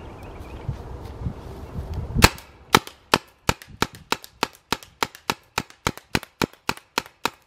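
Tippmann TMC paintball marker firing a steady string of single shots, about three sharp pops a second, starting about two seconds in after some low handling noise.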